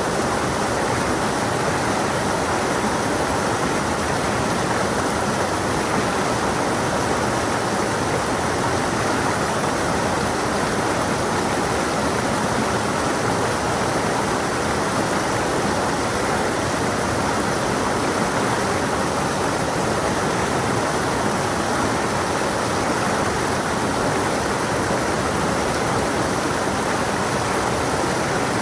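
Stream of water flowing and splashing over rocks, a steady, even rush with no breaks.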